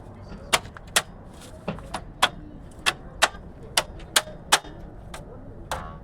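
A dozen or so sharp metallic taps and knocks at uneven intervals, from hand tools and metal brake parts striking each other during front brake pad work; one knock near the end rattles briefly.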